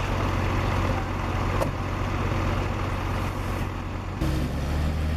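Heavy truck engine running steadily with a low hum and one short click. About four seconds in the sound changes abruptly to a deeper, steadier engine drone.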